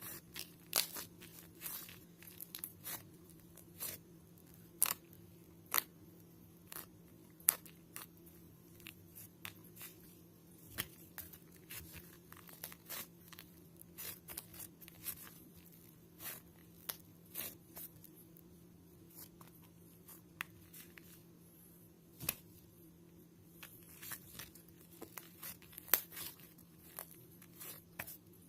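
Irregular sharp clicks and crackles, a few to several a second, over a faint steady low hum.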